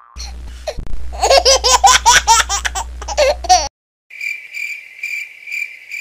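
Laughter in quick repeated bursts for about three and a half seconds, with a low hum under it. After a brief silence, a cricket chirps in a steady, high, regularly pulsing trill.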